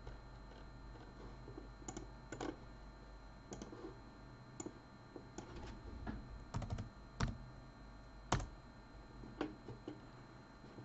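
Irregular keystrokes on a computer keyboard: a dozen or so scattered sharp clicks, the two loudest about seven and eight seconds in, over a faint steady hum.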